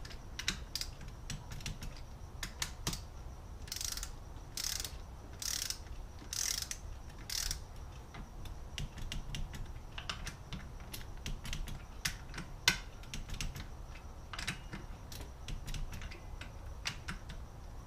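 Hand ratchet clicking while bolts on the clutch are tightened, with five rasping strokes about four to seven and a half seconds in and one sharp click a little past halfway, amid light clicks and taps of tools and parts.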